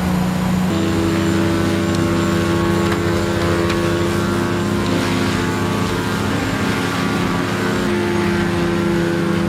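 Large wood chipper's engine running steadily under load. Its note shifts about a second in and then holds.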